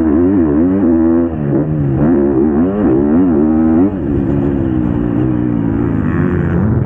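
Motocross bike engine heard from on board at full throttle, its pitch rising and falling as the rider works the throttle and gears. There are brief dips in level, about a second in and again about four seconds in.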